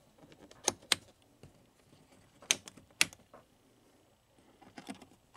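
Vintage tube tester's selector knobs and switches being clicked through to dial in settings for a tube test: a scattering of separate sharp clicks.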